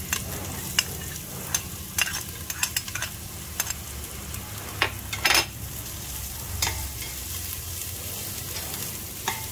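Ginger and garlic sizzling in hot oil in a stainless steel pot, stirred with a slotted spatula that clicks and scrapes against the pot again and again. The loudest scrape comes about five seconds in.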